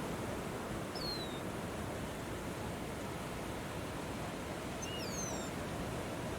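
Steady rushing wind noise. A bird gives a short high call that slides down in pitch about a second in, and a quick cluster of similar falling calls comes near five seconds in.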